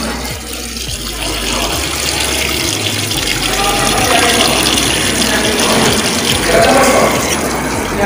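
Water rushing and splashing from the inlet into the drum of a Realme 6.5 kg top-load fully automatic washing machine as it fills at the start of a wash cycle, growing slightly louder over the few seconds.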